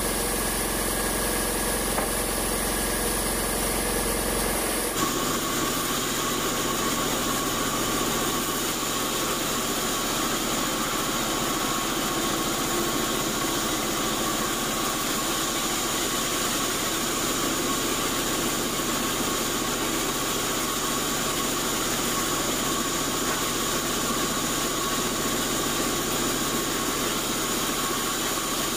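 Sawmill band saw running steadily while cutting through old acacia timber. The steady machine sound changes character abruptly about five seconds in.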